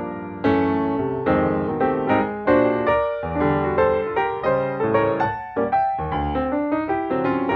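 Background piano music: a gentle melody of struck notes and chords, each note starting sharply and fading away, a little faster toward the end.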